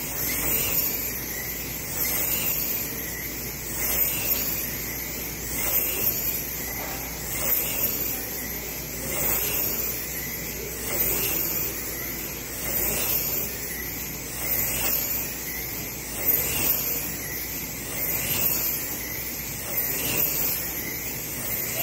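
Slot cars racing on a large multi-lane track: the high-pitched whine of their small electric motors rises and falls as the pack laps, swelling about every two seconds as the cars pass.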